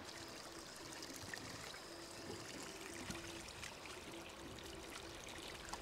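Faint water lapping and trickling against the side of a boat, with a faint hum that comes and goes.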